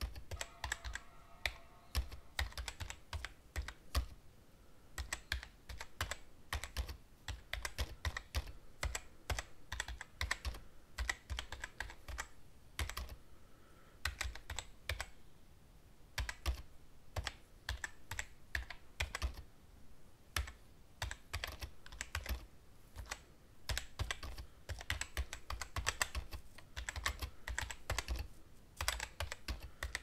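Typing on a computer keyboard, heard from some distance: irregular runs of key clicks broken by short pauses.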